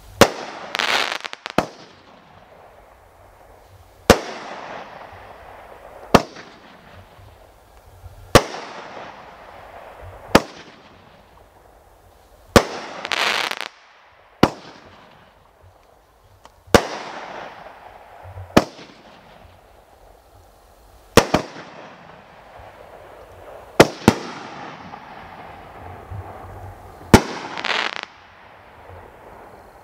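A 'No Mercy' consumer firework cake from World Class Fireworks firing shot after shot: sharp reports about every two seconds, each trailing off in a fading hiss. Three times, near the start, in the middle and near the end, a louder hissing rush lasts about a second.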